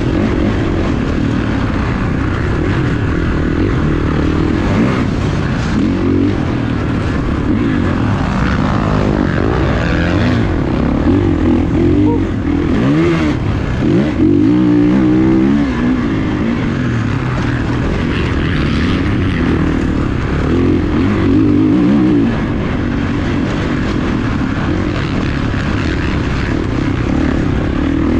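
Motocross dirt bike engine revving up and dropping off again and again under racing throttle, running loud and continuously.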